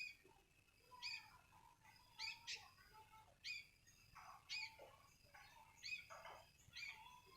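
Sooty-headed bulbul (kutilang) calling faintly: short, sharp chirps about once a second, some in quick pairs.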